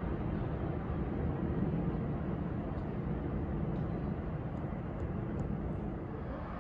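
Steady low rumble of a distant approaching train, a doubleheader of two PL42AC diesel locomotives, not yet close.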